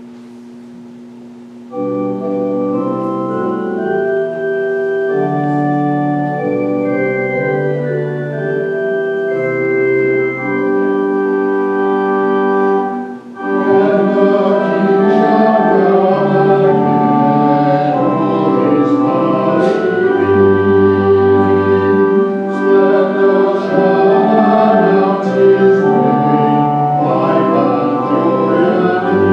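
Organ plays the introduction to a hymn in held, stepping chords. About 13 seconds in, voices join and sing the hymn over the organ.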